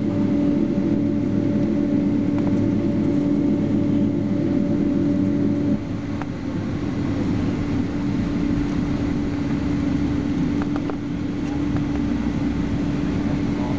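Cabin noise of a Boeing 767-300ER airliner taxiing on the ground, with the engines at idle: a steady hum and rush. About six seconds in, one steady tone cuts out and the noise drops a little.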